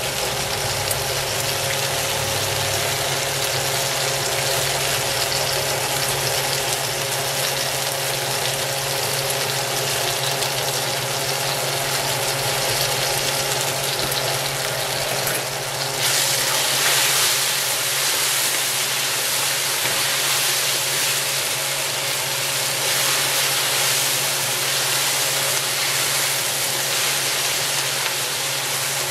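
Gold oyster mushrooms, spinach and green onions sizzling in a hot oiled wok while being stirred with a plastic spatula, over a steady low hum. The sizzle grows louder and brighter a little past halfway through.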